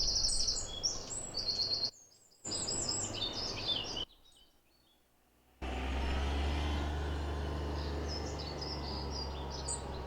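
Birds chirping in two short stretches, each ending in an abrupt cut to silence; about five and a half seconds in, a steady low rumble of street traffic begins, with faint bird calls over it.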